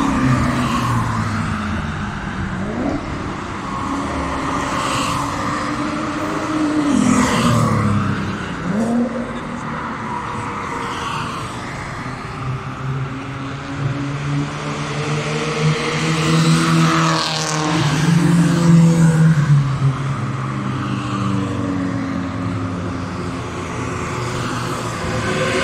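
Sports cars driving past one after another on a race track, their engines revving, each engine note dropping in pitch as the car goes by. The loudest car comes past about two-thirds of the way through.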